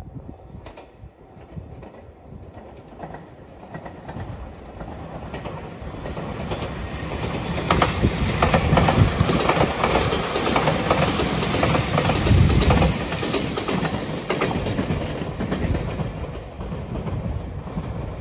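A JR limited express train in Anpanman livery passing at speed, its wheels clattering rhythmically over the rail joints. It grows louder over the first half, is loudest around the middle, and fades as it moves away.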